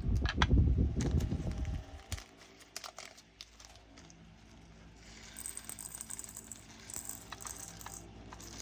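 Small resin diamond-painting drills clicking and rattling as they are tipped out of a plastic bag and shaken, with crinkling of the bag. Heavy handling bumps fill the first two seconds or so.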